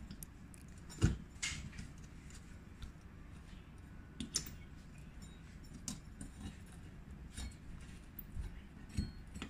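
Small metallic clicks and taps from a screwdriver tightening the centre screw of a Coleman 533 stove's burner assembly, with the burner parts shifting against each other. There are about six scattered clicks, the loudest about a second in.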